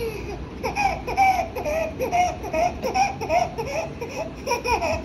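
A toddler laughing in short, high-pitched, repeated sounds, about three a second.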